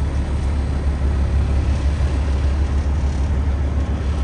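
Fire engine's diesel engine running with a steady low rumble, heard from inside the cab.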